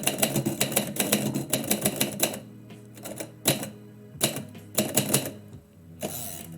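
Typewriter keys striking in a quick run for about two seconds, then a few separate keystrokes with pauses between them, and a short rushing noise near the end. Faint background music plays underneath.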